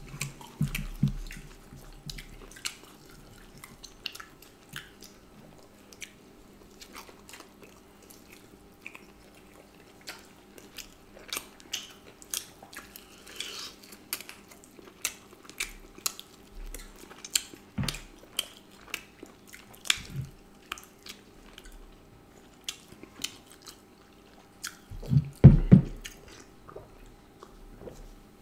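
Close-miked chewing and biting of duck curry and rice-flour roti eaten by hand, with many short wet mouth clicks and smacks. A louder, lower mouth sound comes near the end.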